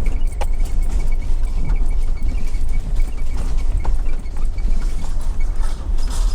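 Vehicle driving slowly, heard from inside: a steady low rumble with scattered small clicks and rattles.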